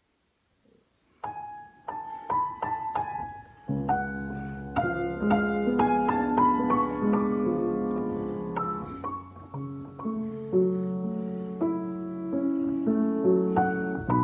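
Piano being played: after about a second of silence, one high note is struck several times. Then, about four seconds in, chords with low bass notes come in and the music carries on, slow and sustained.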